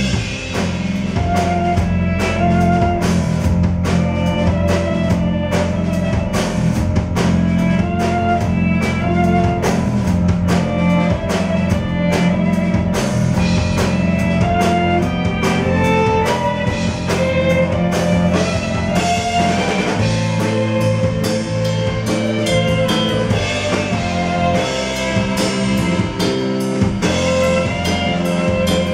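Live instrumental post-rock band playing: a drum kit keeps a steady beat under guitar lines and bass. The deepest bass drops out about two-thirds of the way through.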